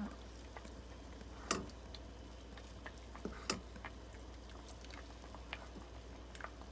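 A ladle scooping hot broth and pouring it over eggs cooking in a pot of soup: faint splashing, with light clicks of the ladle against the pot, the two loudest about a second and a half in and two seconds later.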